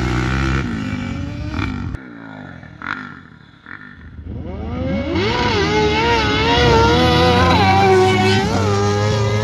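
Motorcycle engine revving: it fades in the first second, then about four and a half seconds in it climbs in pitch and holds at high revs, wavering slightly with the throttle. A few knocks sound during the quieter stretch in between.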